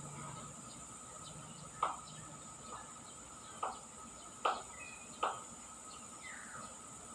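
A caged myna giving about five short, sharp calls over a few seconds, the loudest about halfway through, then a short falling note near the end, over a steady high-pitched insect drone.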